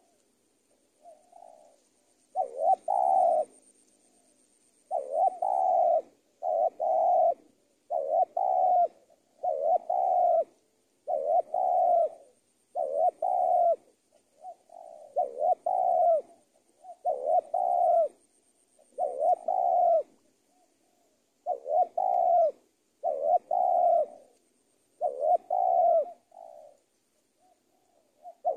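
Spotted dove cooing over and over, one short multi-note coo phrase roughly every second, with a couple of longer pauses between runs.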